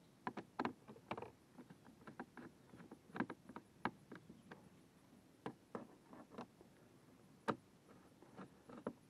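Irregular light clicks and taps of a screwdriver and screws being handled against the hard plastic deck of a kayak, with one sharper knock about seven and a half seconds in.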